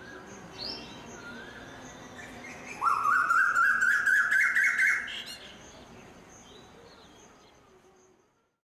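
A songbird singing: scattered short calls, then a loud, fast run of repeated notes climbing in pitch for about two seconds, after which the song fades away.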